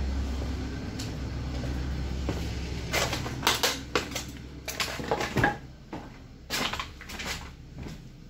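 Footsteps crunching and clattering over trash and debris strewn across a floor: a string of sharp, irregular knocks and scrapes starting about three seconds in, over a steady low hum.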